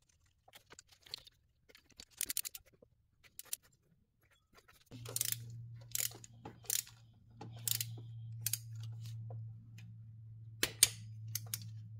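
Metal hand tools clinking and clicking on the idler pulley bolt as it is fitted and tightened to torque. A steady low hum comes in about five seconds in, with further sharp clicks over it.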